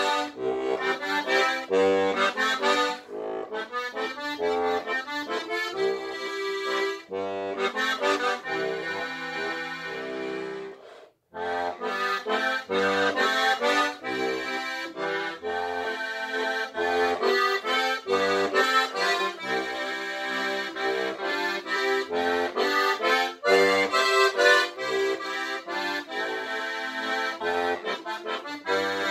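Steirische Harmonika, a Beltuna diatonic button accordion in G-C-F-B tuning, played solo in a waltz. A melody runs over short recurring bass notes, with one brief break about eleven seconds in.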